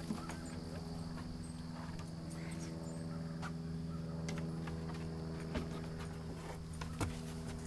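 Scattered light clicks and knocks of steps and paws on a wooden dock, with two sharper knocks near the end. Under them run a steady low hum and a thin, steady high buzz.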